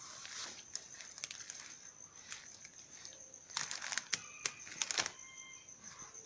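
Footsteps through dry leaves and brushing past undergrowth on an overgrown forest path, with crackling twigs and rustling that come in a denser cluster from about three and a half to five seconds in.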